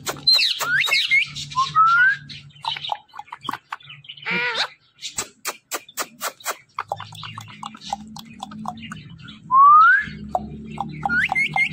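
Indian ringneck parakeet giving short rising whistles amid a run of sharp clicks, with a brief harsh call partway through; the loudest whistle comes about two thirds of the way in.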